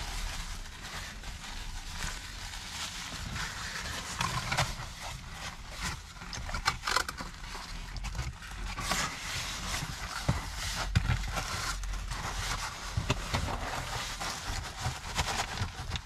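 A paper napkin crinkling and a cardboard pizza box being handled, a run of small scrapes, rustles and clicks, with chewing mixed in.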